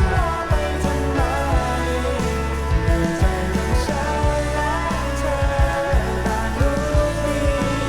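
Rock band music played back from a vinyl record: steady drum hits under a melody line that slides in pitch.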